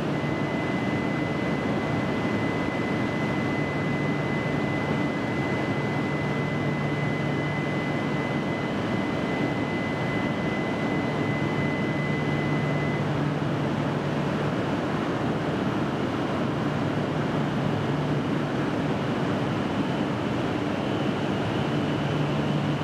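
Steady hum and rush of a Shinkansen train standing at the platform, its onboard equipment running, with a low hum that rises and falls every few seconds. A steady high tone sounds for roughly the first half, then stops.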